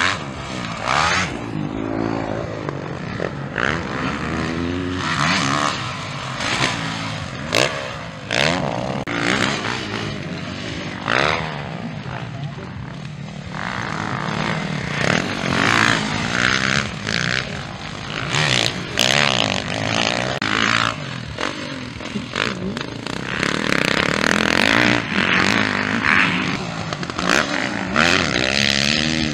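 Motocross bike engines revving hard and easing off over and over as the riders work the throttle through the jumps, the pitch rising and falling, with several sharp clicks along the way.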